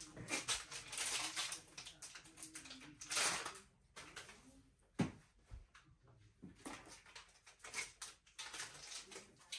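Irregular rustling and clatter of packaging being handled and opened, with a sharp knock about five seconds in.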